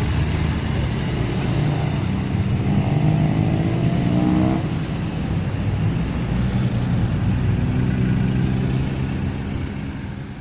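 Lorry engine and road traffic passing close by, the engine pitch rising as it accelerates about three to four seconds in, then the traffic noise fading near the end.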